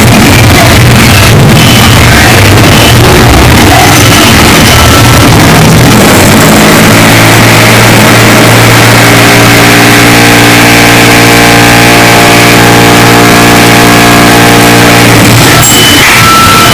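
Construction-site noise, heavily distorted and clipped at full volume: a harsh continuous din, with a steady droning machine tone from about seven seconds in until about fifteen seconds.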